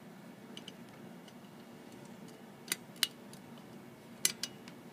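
A few sharp clicks and taps of a metal 3.5 mm audio plug being pushed and fiddled into the end of a Swingline stapler. The loudest clicks come in pairs, one about halfway through and one near the end, over a low steady hum.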